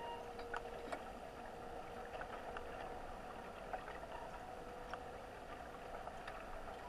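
Underwater ambience on a lake bottom, picked up by a camera in its waterproof housing. A steady hum with a thin tone that comes and goes, dotted with scattered light clicks.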